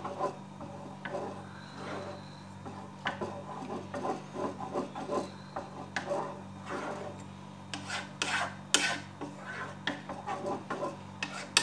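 Wooden spoon scraping around the bottom and sides of a metal pot as yogurt is stirred, in repeated rasping strokes, with a few sharper clicks of the spoon near the end. A steady low hum runs underneath.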